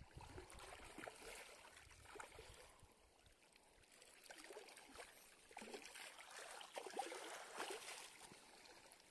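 Faint lapping of small waves against a shallow, reedy lake shore, in soft uneven splashes.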